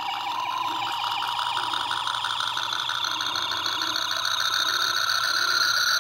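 Playmates Star Trek original series toy phaser playing its overload sound effect through its small built-in speaker. It is a rapidly pulsing electronic whine that rises slowly in pitch and grows a little louder, building toward the phaser 'blowing up'.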